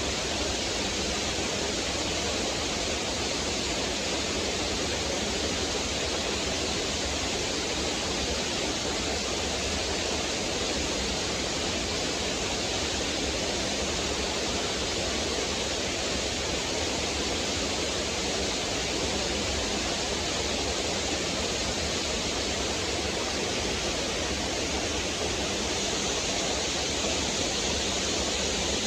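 Small waterfall on a rocky stream, water splashing and rushing over rocks in a steady, unbroken flow.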